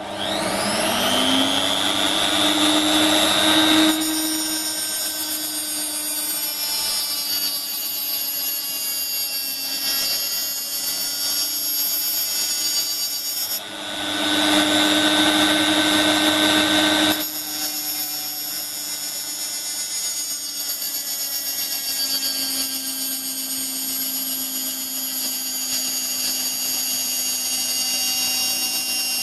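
Angle grinder rigged as a lathe tool-post grinder, run at its lowest speed, spinning up with a rising whine and then grinding across the end of a stainless steel part turning in the lathe. About four seconds in the sound drops and turns rougher. It comes back to the higher, louder whine for a few seconds past the middle, then settles again.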